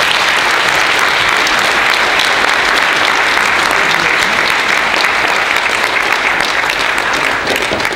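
Audience applauding steadily, a dense patter of many hands clapping that eases off near the end.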